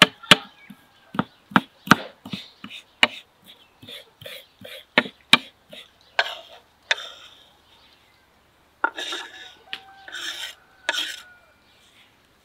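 Kitchen knife chopping fresh herbs on a wooden cutting board: sharp knocks about two or three a second for the first five seconds or so, then a few slower, scraping strokes. Faint bird chirps near the end.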